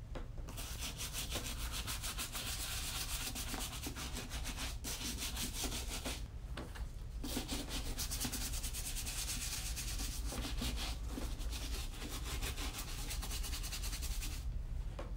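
Small brush scrubbing a black leather boot with leather cleaner in rapid back-and-forth strokes, pausing briefly about six seconds in and stopping near the end.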